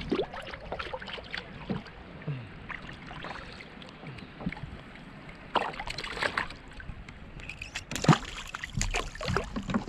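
Scattered light knocks, clicks and small water sounds from handling gear on a plastic fishing kayak, with a few sharper knocks about two-thirds of the way through.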